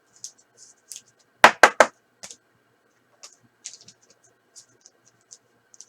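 Trading cards being handled and slid over one another, making short scratchy swishes, with three sharp taps in quick succession about a second and a half in.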